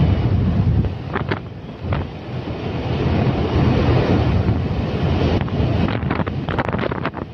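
Wind buffeting the microphone of a moving camera: a loud, steady rushing rumble that eases briefly about a second in, with a few short crackles near the end.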